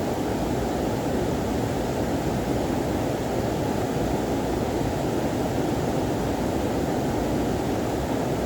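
Steady rush of a waterfall, an even, unbroken roar of falling water.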